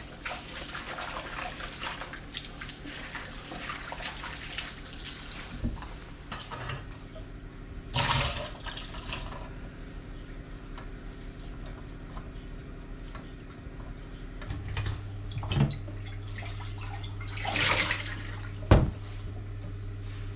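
Water running from a kitchen tap while cut potato pieces are rinsed by hand in a glass bowl, with splashing that swells twice; the pieces are tipped into a metal pot, and the pot is filled under the tap. A sharp knock comes near the end.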